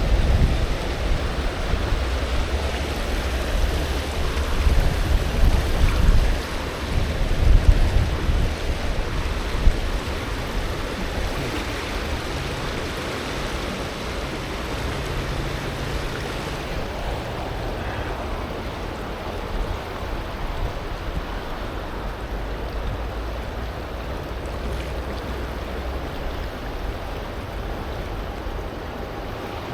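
Steady rush of flowing river water, with gusts of wind on the microphone adding a low rumble during the first ten seconds or so.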